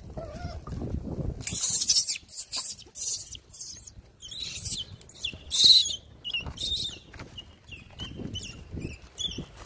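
Plastic bag crinkling in a run of short crackles, loudest about a second and a half in and again near the middle, followed by brief high chirps in the latter half.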